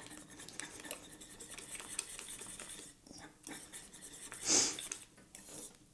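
A utensil stirring thick horseradish cream sauce in a small stainless steel saucepan: a run of soft scrapes and rubs against the pot, with one louder swish about two-thirds of the way in.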